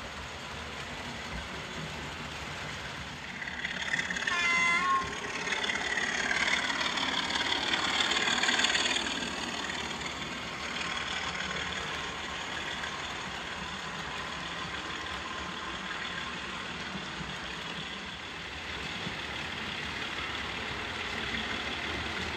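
OO gauge model diesel locomotives hauling coaches round a layout, with a steady running rumble on the track. About four seconds in comes a short wavering high-pitched sound, and the noise grows brighter and louder for a few seconds before settling back.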